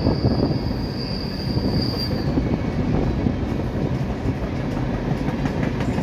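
A passing train rumbling steadily, with a thin high wheel squeal for the first couple of seconds that then fades away.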